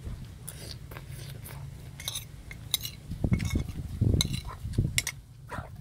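Eating sounds: a metal spoon clinking against a dish, with several sharp clinks in the second half, and a person biting and chewing fish with raw water mimosa stems.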